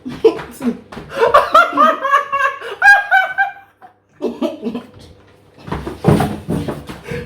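Laughter: a long run of quick, high-pitched bursts, a brief pause about four seconds in, then more laughter.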